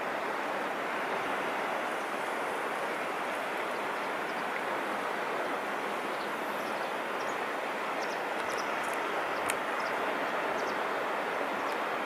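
Steady rush of wind and gently washing sea at the shore, an even noise without rhythm, with a few faint high ticks in the second half and one sharper click about two-thirds of the way in.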